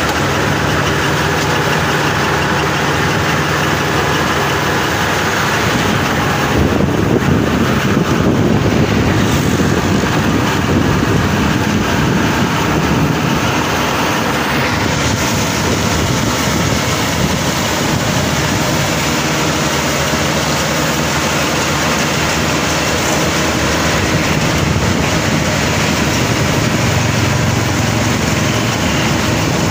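Bimo 102 crawler rice combine harvester running steadily, a continuous engine and machinery sound. About six seconds in it grows louder and rougher, and it eases back after about fifteen seconds.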